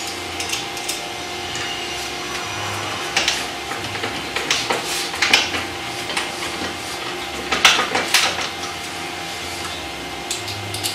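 Hand screwdriver driving screws through a 35 mm concealed cabinet hinge into plastic dowels in a particleboard door, with scattered scraping clicks of the tool against the metal hinge, over a steady low hum.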